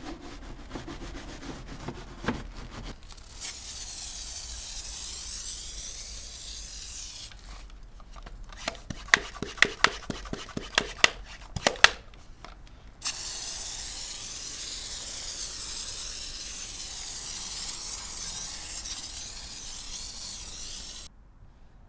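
Car detailing work: rasping scrubbing strokes on the car, a few seconds of steady spray hiss, then a run of sharp clicks. About eight seconds of steady spray hiss follow and cut off suddenly near the end.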